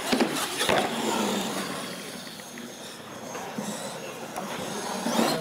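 R/C monster truck driving across a concrete floor: motor and tyre noise, with a few sharp knocks in the first second and another near the end.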